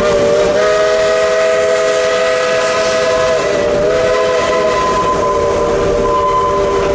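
Steam locomotive's chime whistle sounding a chord of several notes, starting right at the beginning and held as one long steady blast, over the running noise of the train.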